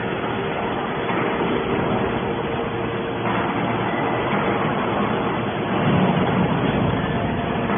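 Hydraulic scrap metal baler running: a steady mechanical drone with a faint held tone from its hydraulic power unit, swelling a little about six seconds in.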